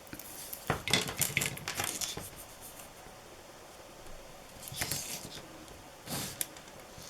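Light rustles and taps of card stock being handled while glue is applied, in a few short bursts with quiet between them.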